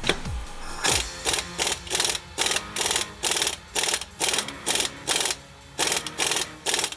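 Ratchet wrench worked in quick back-and-forth strokes, about three a second, turning the forcing screw of a C-frame U-joint press that pushes a bearing cap out of a double cardan driveshaft yoke; each stroke is a short burst of ratchet clicks. Two short falling tones in the first second.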